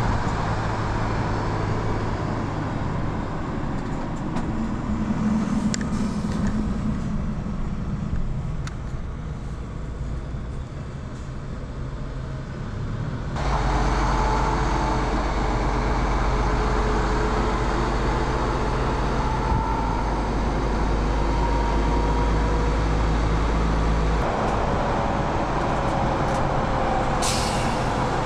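MAN TGX 18.470 truck's straight-six diesel running on the move with tyre noise, its note rising about five seconds in; the sound shifts abruptly, louder and deeper, about 13 seconds in and changes again about 24 seconds in. A short air-brake hiss comes near the end.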